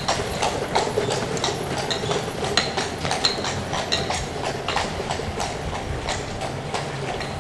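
Horse hooves clip-clopping on cobblestones, two or three strikes a second, with a horse-drawn carriage rattling along behind. The hoofbeats grow fainter near the end.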